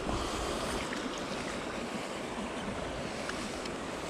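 Steady rushing of river water, with wind buffeting the microphone and a few faint clicks.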